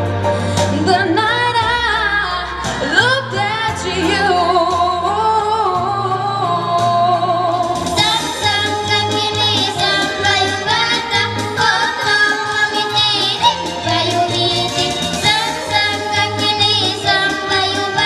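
A woman singing into a microphone over a backing track, her voice wavering with vibrato. About eight seconds in, the music switches abruptly to a different song, with singing over a brighter, busier accompaniment.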